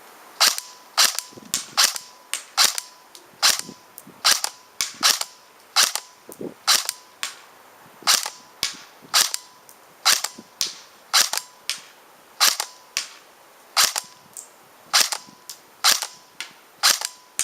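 KWA M4A1 electric (battery-powered) airsoft rifle firing on semi-auto: a long string of single sharp shots, roughly two a second at a slightly uneven pace. A faint steady tone runs underneath.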